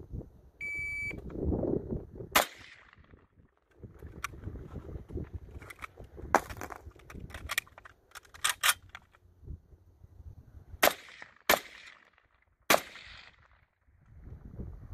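A shot-timer beep, then a single shot from an M1 Carbine in .30 Carbine. Next comes the clatter of an empty-gun reload: the empty magazine pulled out, a fresh one seated and the operating slide worked. Then three more shots: two about half a second apart and a last one about a second later.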